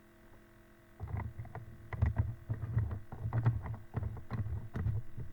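Irregular clicks and dull knocks of small metal hobby-vise parts, its feet and screws, being handled and fitted by hand. They start about a second in.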